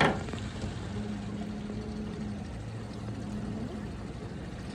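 Boat motor running steadily at slow trolling speed, a constant low rumble. There is a sharp click right at the start and a faint steady hum partway through.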